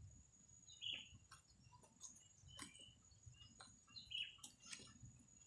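Near silence with a bird chirping faintly three times, about every second and a half, over a faint steady high whine and scattered soft clicks.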